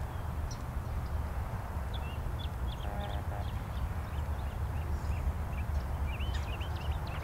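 Tecsun PL-660 portable shortwave radio being tuned between stations: hiss and static, with a brief snatch of a signal about three seconds in. Small birds chirp now and then over a steady low rumble.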